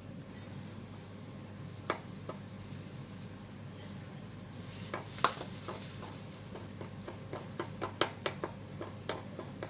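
A spoon stirring a paste of baking soda, lemon juice and toothpaste in a small bowl. There are a few scattered clinks of the spoon on the bowl, then a quicker run of clinks and scrapes over the last couple of seconds.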